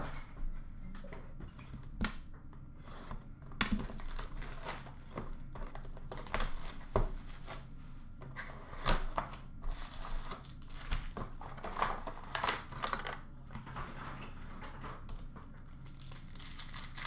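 Hands opening a 2019-20 Upper Deck Allure hockey card box and tearing open its packs: irregular crinkling and tearing of pack wrappers and cardboard, with scattered sharp crackles.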